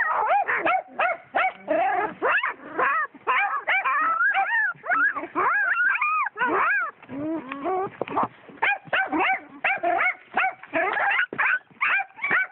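Young puppies whining and yelping: a rapid, unbroken string of short high cries that rise and fall in pitch.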